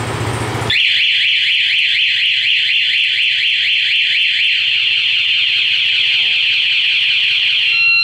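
Aftermarket motorcycle anti-theft alarm siren on a Yamaha Fino fuel-injected scooter, set off from the remote's lock button as in a theft. It sounds as a loud, fast, repeating rising warble that starts just under a second in and switches to a different beeping pattern at the very end.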